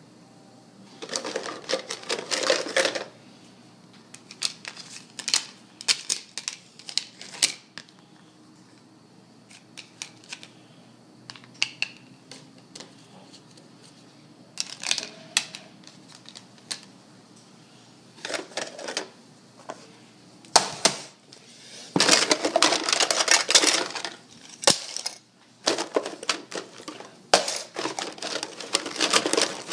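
Plastic toy food pieces being handled and set down on a woven placemat: scattered clicks and taps, with a few longer stretches of scraping and rubbing.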